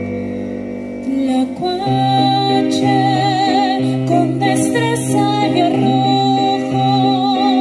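Live acoustic ensemble music: piano chords under a slow melody with vibrato from violin and female voices. A new phrase comes in about a second and a half in.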